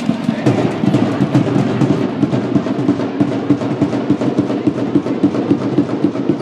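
Drum beaten in a quick, steady rhythm of short thumps.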